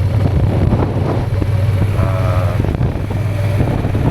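Motorcycle engine running at low speed, a steady low hum with wind buffeting the microphone.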